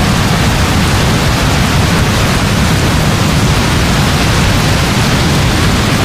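Heavy rain falling steadily, a dense even hiss with a deep low rumble underneath that holds level throughout.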